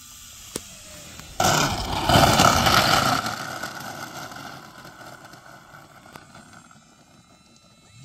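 Electric motor and propeller of an E-flite Cessna 150 Carbon-Z model plane throttled up sharply about a second and a half in: a steady whine over a rush of air. It then winds down and fades over the next few seconds.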